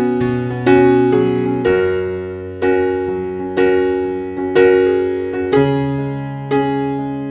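Background music: slow piano chords, a new chord struck about once a second and fading away before the next.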